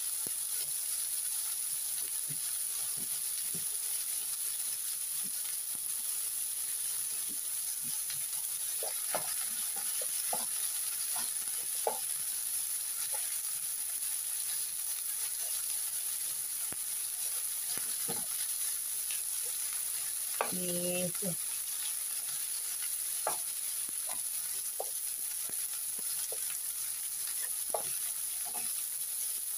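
Shrimp and chilies sizzling in oil in a nonstick frying pan, a steady high hiss. A wooden spatula scrapes and taps the pan in scattered clicks as the food is stirred and turned.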